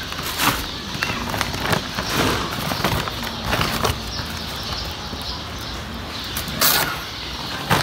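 Brown paper bag crinkling and rustling as it is pulled open by hand around a coiled firecracker belt, in irregular crackles with a louder one near the end.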